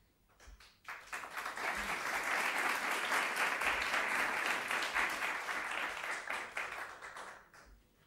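Audience applauding: a few scattered claps, then steady applause from about a second in that thins out near the end.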